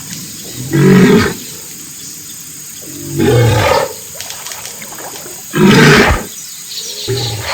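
Hippopotamus calling: four loud, deep calls, about one every two seconds.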